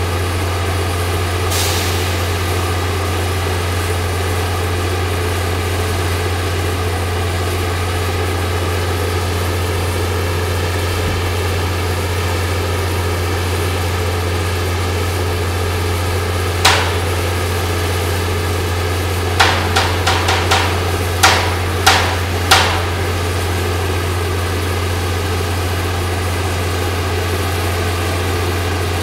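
A heavy crane's engine runs with a steady low hum, while sharp metallic knocks ring out on the steel: one knock, then a quick run of about six more a few seconds later.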